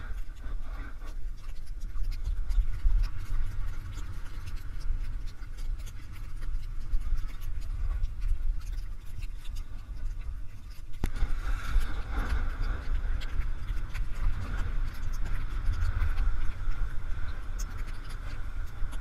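Wind rushing over the microphone of a body-mounted camera, with the hiss and scrape of a snowboard's edge sliding on packed snow while riding down a piste. About halfway through there is a sharp tick, after which the scraping gets louder.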